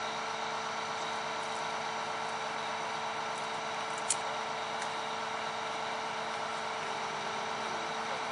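Engine of heavy worksite machinery running steadily at constant speed, an even hum. A single sharp click about four seconds in.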